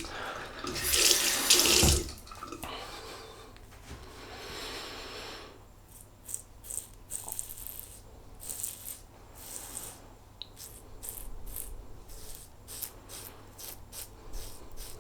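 Tap water running into a bathroom sink, loudest for the first two seconds, then a string of short splashes as water is scooped and splashed, rinsing after a shave.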